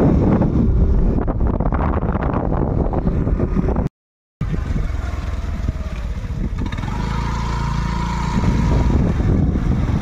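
Wind buffeting the microphone on a moving motorcycle or scooter, with the engine's low rumble underneath. The sound drops out abruptly for about half a second a little before four seconds in, then the ride noise resumes.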